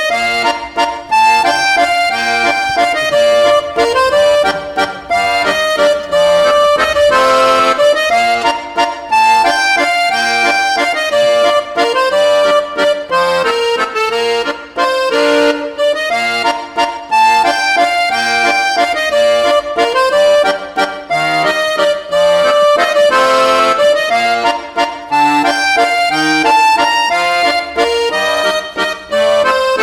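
Background music led by an accordion melody, with a light, bouncing beat.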